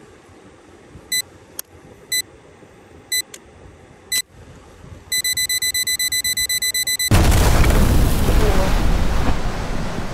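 Electronic beeping: three short single beeps about a second apart, with a few faint clicks between them, then a fast run of beeps for about two seconds. A loud rushing noise follows suddenly and slowly fades.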